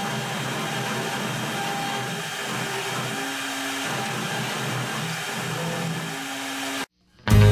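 CNC router spindle running with its 90-degree V-bit carving into a wooden board: a steady whirring noise with short, steady tones that change pitch every second or so as the machine moves. It cuts off abruptly near the end, and rock music begins.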